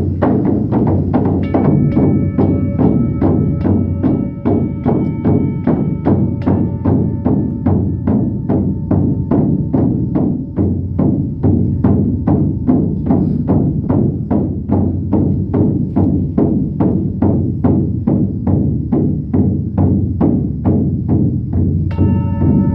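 A large frame drum beaten in a steady, even rhythm, with singing bowls ringing over the beat; the bowl tones come in about a second and a half in and are struck afresh near the end.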